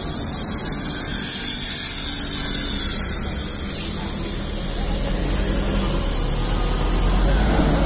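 Diesel coach bus driving slowly past close by: a low engine rumble that grows from about halfway through, over a steady high hiss.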